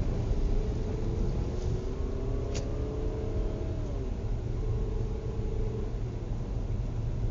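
A motor vehicle engine running over a heavy low rumble. Its pitch climbs slowly, drops about four seconds in, then comes back briefly, with a single click just before the drop.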